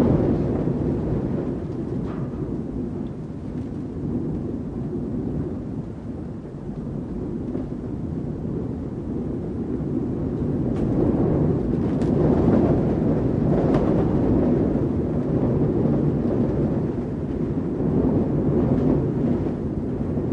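Wind heard from inside a building: a low, deep rush that swells and eases in slow gusts, strongest a little past the middle, with a few faint ticks around the middle.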